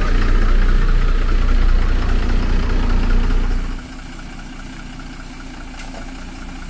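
A Tata lorry's diesel engine idling, loud and close at first. About four seconds in it drops to a quieter, farther-off steady idle.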